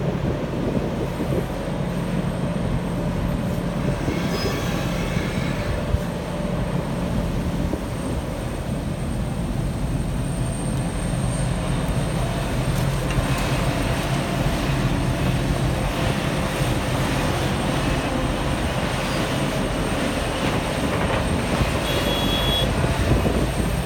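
Liebherr 974 crawler excavator working under load: its diesel engine and hydraulics run steadily as the bucket swings and dumps soil into a dump truck. Brief high squeals come about four seconds in and again near the end.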